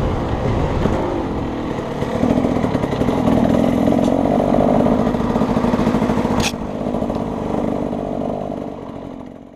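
KTM 250 SX two-stroke dirt bike engine running steadily at low speed, heard from the rider's helmet. A single sharp click sounds about six and a half seconds in, and the engine sound fades out near the end.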